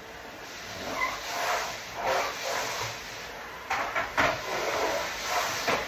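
Vacuum cleaner running, its rushing noise swelling and fading, with a few knocks in the second half.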